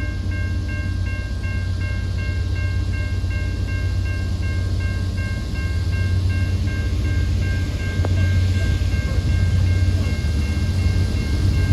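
Freight train with a steady, deep diesel rumble that grows a little louder partway through. A high ringing tone pulses on and off about three times a second over the rumble.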